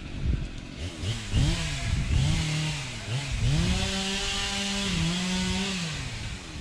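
A small engine revved up and down in quick blips several times, then held at high revs for a couple of seconds before dropping back near the end.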